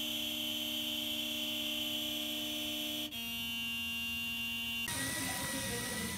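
Car horn held down continuously, a steady buzzing blare whose tone shifts suddenly about three seconds in, from an SUV with a dog sitting at the wheel. It cuts off near the end, leaving a quieter hiss.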